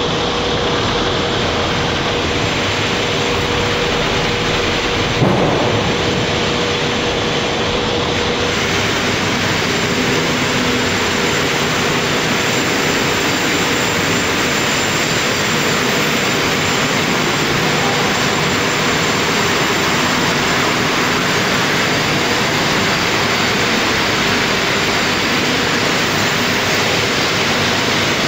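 Wood-chip biomass burner and thermal oil boiler plant running, its centrifugal blower fans and motors making a loud, steady noise with a faint steady hum through it. A single knock about five seconds in.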